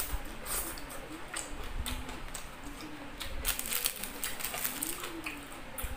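Close-up eating sounds: wet chewing, lip smacking and sucking on chicken pieces eaten by hand, with irregular sharp mouth clicks.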